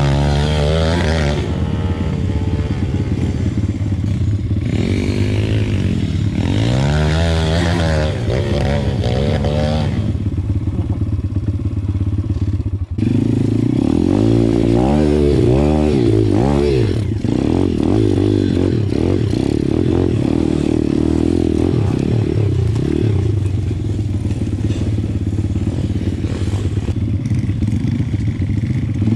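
Pit bike engine being ridden hard, revving up and falling back again and again as the throttle is opened and closed.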